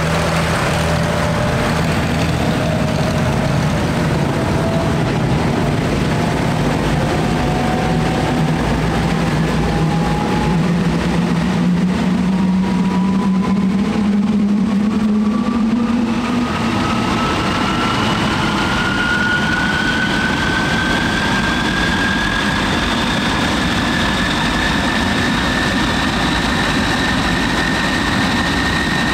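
MiG-15 jet's turbojet engine spooling up during start-up: a thin whine that climbs slowly and steadily in pitch and levels off near the end. Underneath runs a low engine drone, from the ground power cart, that rises and fades out about halfway through.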